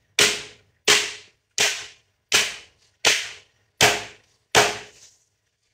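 A metal baking tray of piped macaron shells being banged down flat on a worktop: seven sharp bangs at an even beat, about two thirds of a second apart, each with a brief metallic ring. Rapping the tray like this knocks air bubbles out of the shells before they rest and bake.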